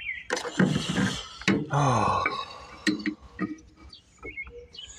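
A man's low, wordless voice mumbling and grunting, loudest in the first two seconds, with a few sharp clicks of engine parts being handled.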